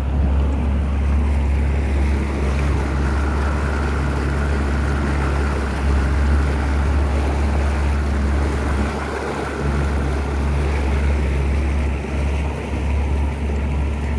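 Steady rumble of a motorboat under way: engine drone and rushing water, with wind buffeting the microphone, briefly easing about nine and twelve seconds in.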